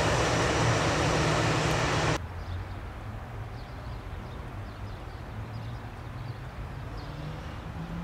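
Airbus A320-214's CFM56 jet engines running loud as the airliner rolls out along the runway after landing. The sound drops abruptly about two seconds in to a much quieter, steady low engine hum of the airliner taxiing.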